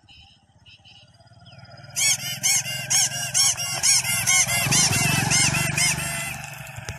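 Homemade novelty motorcycle horn sounding a rapid string of loud notes, about three a second, each rising then falling in pitch. It starts about two seconds in, over the motorcycle's engine running.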